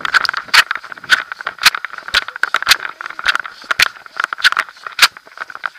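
A horse moving at pace, heard through an action camera strapped to its girth. The camera and its mount knock and rub against the girth, with a sharp knock about every half second in time with the strides, over steady scraping and rattling.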